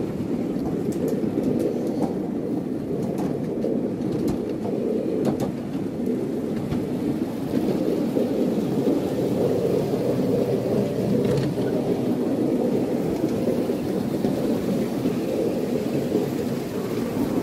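Miniature railway train rolling along its track: a steady rumble of wheels on rail, with a few faint clicks now and then.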